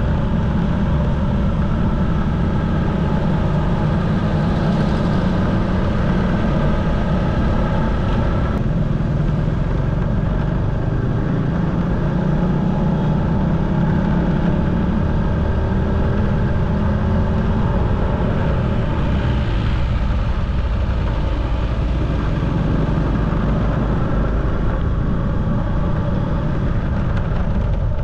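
Motorcycle engine running steadily while riding, with wind rumble on the microphone.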